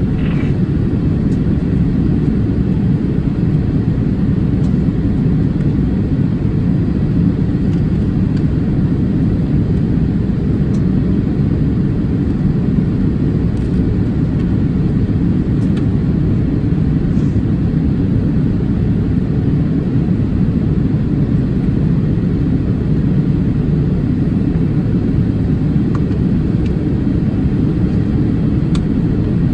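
Steady low rumble inside the cabin of a Boeing 787-8 airliner in descent, heard from a seat over the wing.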